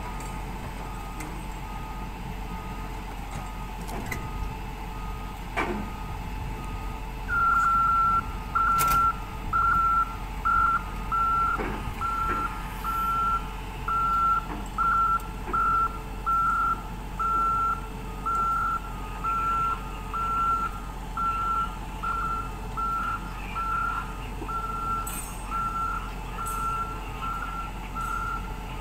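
A wheel excavator's travel/backup alarm beeping at a steady pace of about one and a half beeps a second. It is faint at first and becomes loud about seven seconds in, over the steady sound of the machine's engine running.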